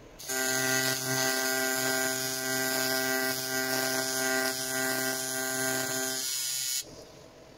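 AC TIG welding arc on an aluminium intercooler end tank: a steady buzz that strikes up just after the start and cuts off suddenly about a second before the end.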